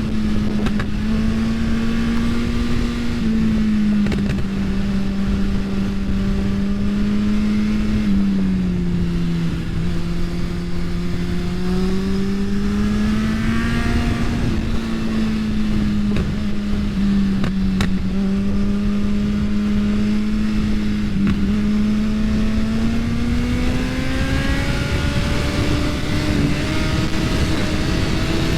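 2022 Suzuki Hayabusa's inline-four engine running hard on track, its pitch falling and rising several times with throttle and speed and climbing near the end. Heavy wind rush on the microphone sits under it.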